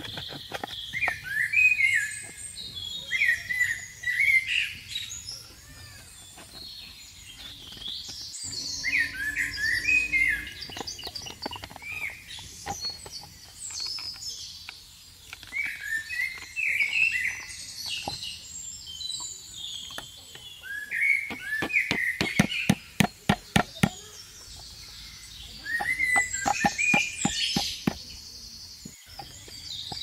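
Small birds chirping and twittering on and off. About two-thirds of the way in, a fast run of sharp clicks comes over the birdsong, a few every second, and a few more follow shortly after.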